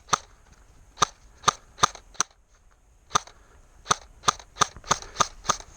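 Airsoft gun firing single shots, about a dozen sharp cracks at an uneven pace, some close together and some with a second's gap.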